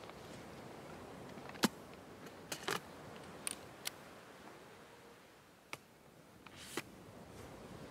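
Scattered sharp mechanical clicks and small knocks, about seven at irregular intervals, the loudest a little over a second and a half in, over a faint steady hiss.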